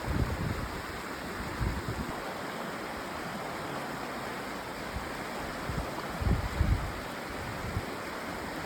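Steady rushing of flowing water, like a stream, with gusts of wind buffeting the microphone a few times, most strongly a little after halfway.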